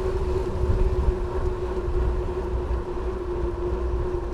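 Wind rumble and road noise picked up by a camera on a moving bike on a wet road, with a steady, even hum throughout.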